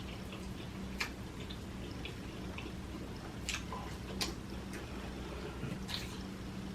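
Wet mouth smacks from chewing buttery seafood: four sharp, sticky clicks, spaced irregularly, over a steady low hum.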